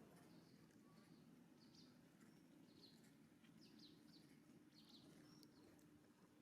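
Near silence: faint outdoor ambience with scattered short, high chirps and a faint steady low hum.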